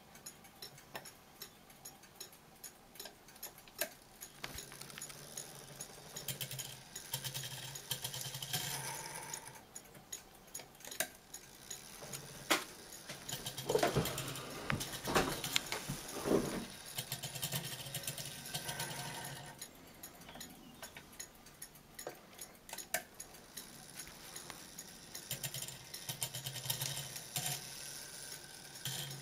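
Triple fusee bracket clock movement running on the bench: a stream of mechanical clicks and rattles from its chime train, with a low whirr that starts and stops and a louder clatter of knocks in the middle.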